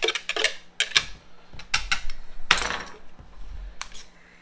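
Sharp plastic knocks and clatter, about ten over the first three seconds, with a short rustling scrape about two and a half seconds in, as chopped carrot is tapped and shaken out of a plastic hand food chopper's bowl onto a plate. One faint knock follows near the end.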